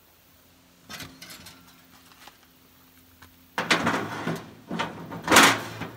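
Expanded-metal grates on angle-iron frames sliding into a steel water-heater-tank smoker, metal scraping and clattering: a few light clinks about a second in, then louder scraping from about three and a half seconds, loudest near the end.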